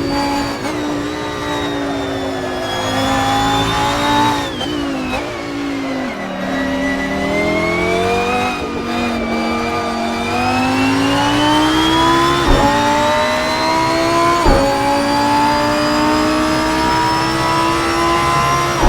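Lamborghini Huracán Performante's naturally aspirated V10 heard onboard at racing speed. The revs drop for a couple of seconds early on as it slows, then climb hard, with two quick upshifts a couple of seconds apart, each a sharp crack, before pulling on at high revs.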